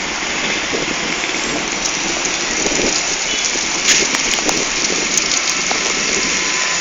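Steady, rain-like hiss of volcanic ash falling and pattering on surfaces, with a few sharper ticks of heavier grains near the middle.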